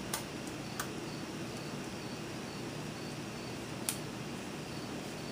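Three small sharp clicks and taps as a replacement LED screen panel is handled and set into an HP ProBook 4530s laptop lid, the loudest about four seconds in, over a steady hiss.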